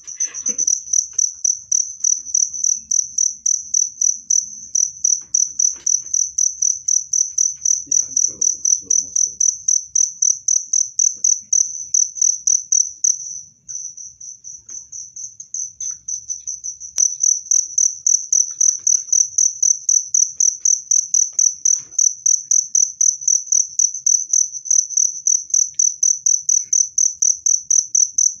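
Cricket chirping: a loud, high-pitched trill pulsing in a rapid, even rhythm. It drops off briefly about halfway through, comes back softer, and returns to full strength a few seconds later.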